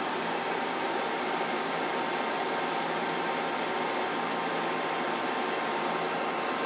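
Steady hiss with a faint low hum underneath, like a fan or running bench equipment.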